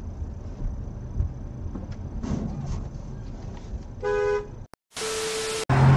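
A car driving with a steady low engine and road rumble, then a short car horn toot about four seconds in. Near the end a louder, noisier sound cuts in.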